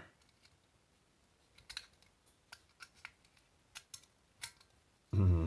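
A small screwdriver levering at the metal earth contact inside a plastic plug adapter: a scattered series of light, sharp clicks and ticks as the tip catches on the metal and plastic, spread over about three seconds.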